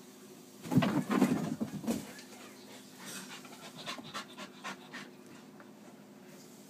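Blue heeler dog panting, with a loud rush of noise about a second in and a run of light ticks and short scuffs in the middle.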